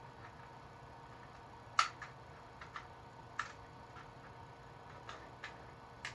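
Scattered, irregular sharp clicks and taps of a 3D-printed plastic rubber band blaster being handled as a rubber band is fitted. The loudest click comes about two seconds in.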